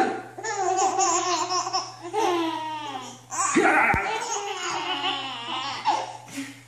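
Babies laughing at an adult playing with them, in several bursts with short breaks between.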